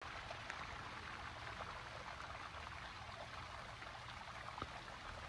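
Small stream of water running and splashing over mossy rocks in a little cascade: a steady, fairly faint rush with many small droplet splashes through it.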